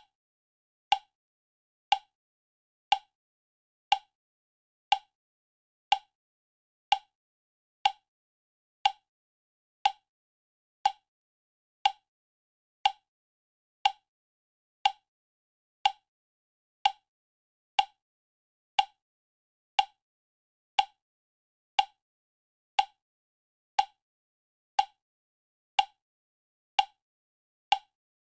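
Countdown timer sound effect ticking once a second, a short sharp click with a brief pitched ring to each tick.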